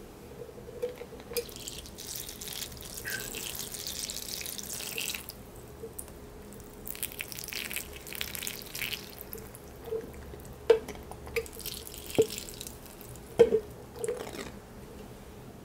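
Water pouring from a long, thin watering-can spout onto basil leaves and potting soil, in two runs of a few seconds each. Near the end come a few sharp drips and splashes.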